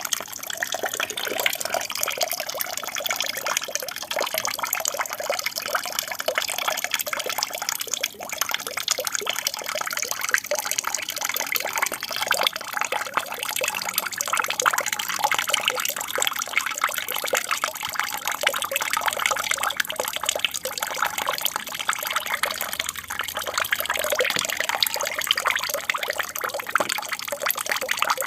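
Water from an aquarium's waterfall splashing and trickling steadily into the tank.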